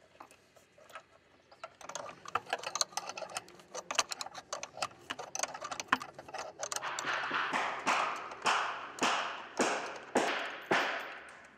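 Ratchet spanner tightening the nuts on the wall bolts that hold the hot water tank: rapid clicking, settling in the second half into a regular stroke about twice a second.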